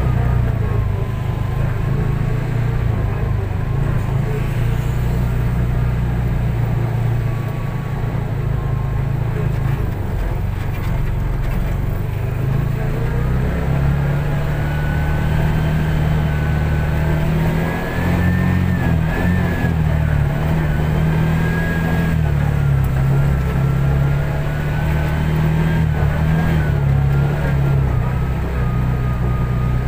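A car being driven: steady engine and road noise, with the engine note shifting gently and a faint whine that slowly rises and falls.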